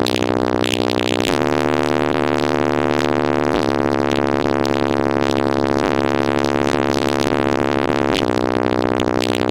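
Synth-heavy music with a deep bass line and sustained chords that change every couple of seconds, played loud through a car audio system.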